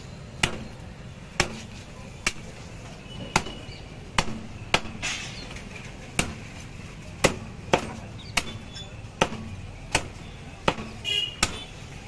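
Heavy fish-cutting knife chopping through a parrot fish and striking a wooden chopping block. It makes a dozen or more sharp chops at an uneven pace of roughly one a second.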